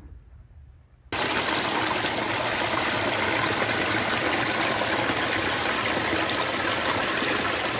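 Small woodland creek running full, a steady rush of water that starts abruptly about a second in.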